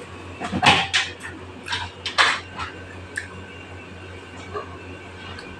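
Dishes and cutlery clinking and clattering at a meal table, a cluster of sharp knocks in the first two and a half seconds, then a few fainter ones.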